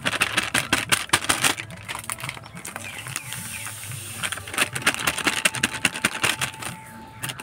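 Dry semolina poured from a crinkly plastic packet into a stainless steel bowl: the packet crackling and the grains pattering into the bowl as a rapid, irregular run of small clicks.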